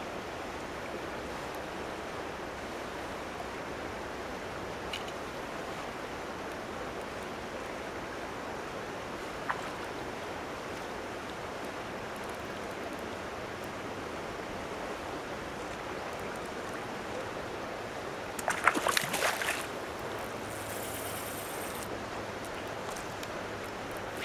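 Steady rush of water pouring from an inflow pipe into a fishing pond. About nineteen seconds in there is a short burst of sharp clattering.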